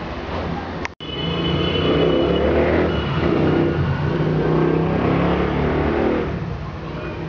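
A motor vehicle's engine running nearby, getting louder just after a brief cut in the sound about a second in and easing off about six seconds in.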